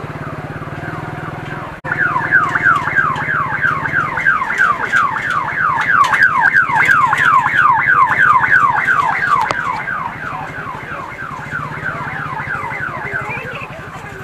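An electronic alarm- or siren-like tone, a rapid string of falling chirps about four a second, starts suddenly about two seconds in and fades toward the end. Underneath is the low steady hum of a motorbike engine.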